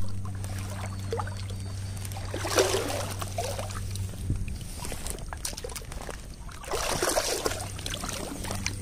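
Water splashing in two bursts, about two and a half and seven seconds in, over a steady low hum.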